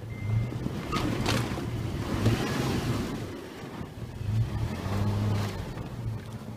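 SUV engines revving in uneven surges as a stuck Toyota FJ Cruiser is towed out of deep snow on a recovery rope, with a rush of tyres spinning in the snow around the middle. Two sharp clicks come about a second in.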